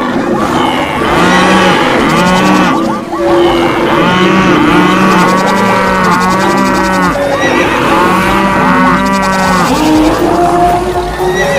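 Many animals calling at once: long, drawn-out, low calls overlapping one another without a break.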